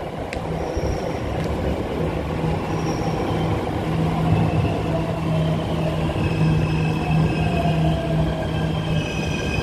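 MRT Jakarta train pulling into the station and slowing to a stop: a steady low hum, a whine that falls slowly in pitch as it brakes, and thin high squealing tones that build up toward the end.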